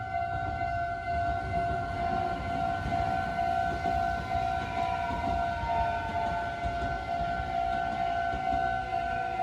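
Japanese railway level-crossing warning bell ringing steadily with its electronic two-tone alarm, while a Meitetsu train rumbles through the crossing.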